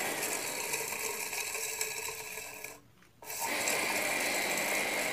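Shimizu electric water pump running on test after repair, its motor and impeller giving a steady whir with a high hum. It stops briefly about three seconds in, then starts again. It is working normally again after being repaired from not drawing water.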